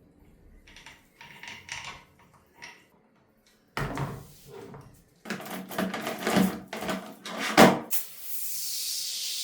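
Parts and tools being handled on a workbench: scattered knocks, scrapes and clatters, louder in the second half. About eight seconds in, a steady hiss starts.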